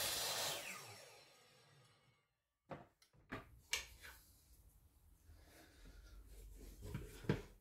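Hikoki 216 mm mitre saw running at the end of a cut through wooden quarter-round trim, switched off about half a second in and winding down with a falling whine over about a second. Then a few sharp clacks and knocks as the saw head is raised and the trim is handled.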